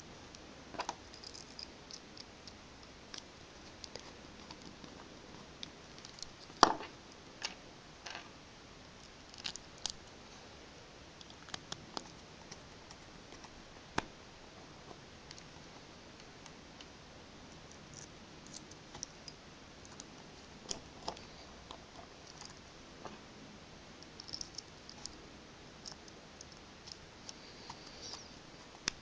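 Faint, scattered clicks and scrapes of a Phillips jeweller's screwdriver turning the case screws into a plastic 9g micro servo, mixed with the servo being handled in the fingers. The clicks come at irregular intervals, with one louder click about a quarter of the way in.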